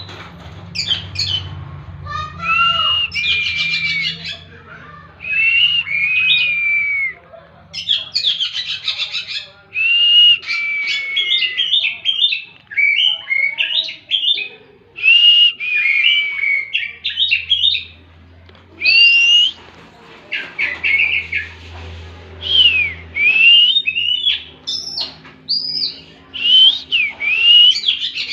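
Oriental magpie-robin (kacer) singing a long, varied 'tembakan' song: loud whistled phrases of rising and falling slurs, broken by quick chattering notes, with short gaps between phrases.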